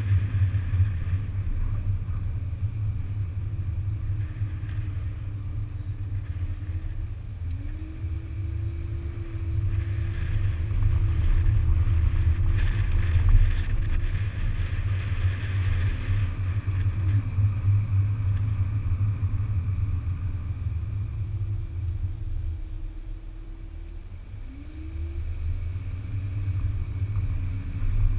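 A 2008 Audi A5 3.2 driving slowly, heard from a camera mounted low on its flank: a steady low rumble of road and wind noise, with the V6 engine note rising and falling several times as the car speeds up and slows. The whole sound drops quieter for a couple of seconds about two-thirds of the way through, then picks up again.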